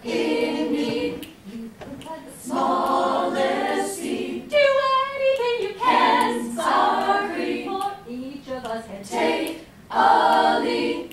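Women's choir singing a cappella in phrases separated by short breaks, with one wavering voice standing out briefly about halfway through.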